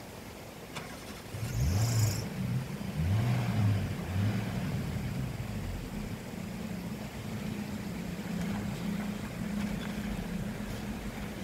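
Maruti Gypsy 4x4's engine crawling over rough ground, revving up and down twice from about a second and a half in, then running at a steady note. A brief hiss about two seconds in.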